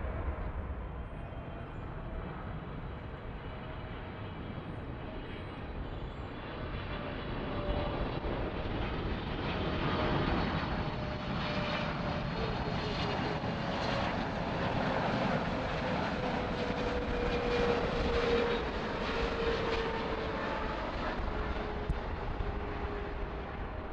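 Jet engines of a Boeing 777-300ER on final approach: a steady rumble that swells from about eight seconds in, with a whine that falls slowly in pitch as the plane passes.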